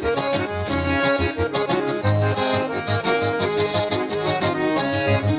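Accordion playing an instrumental break in a gaúcho vaneira, with rhythmic bass notes pulsing underneath.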